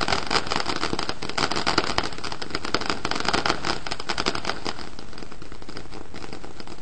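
Ground fountain firework spraying sparks with a dense run of small crackles and pops. The crackling thins out after about four and a half seconds, with no single big bang.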